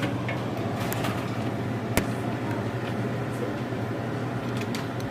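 Steady low machine hum with an even background noise, broken by a few light clicks, the sharpest about two seconds in.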